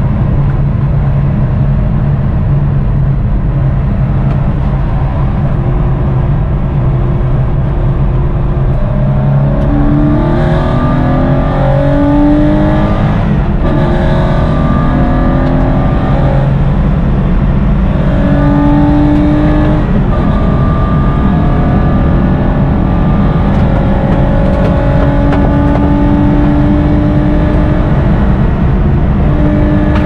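Porsche 993 Cup's air-cooled flat-six engine heard from inside the cockpit: a steady low drone at first, then accelerating hard, revs climbing and dropping back over several gear changes.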